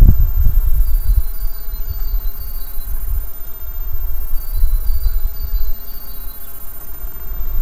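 Wind buffeting the microphone in uneven gusts. Over it, a small bird repeats a short high two-note phrase about five times, once about a second in and again about four and a half seconds in.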